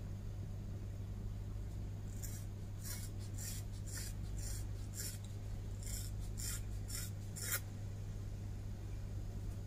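Scissors snipping through a thick bunch of long hair: about ten crisp snips, roughly two a second, starting about two seconds in and stopping well before the end. A steady low hum runs underneath.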